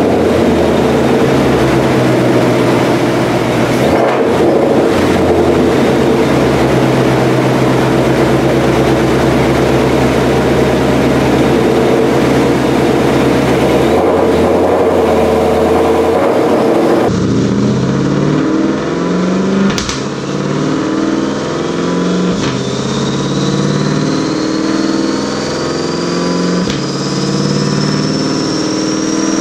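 2020 Shelby GT500's supercharged 5.2-litre V8 running on a chassis dyno through a Lethal Performance track exhaust, holding a steady note for about the first half. After that it gathers speed slowly, with a high whine climbing steadily in pitch.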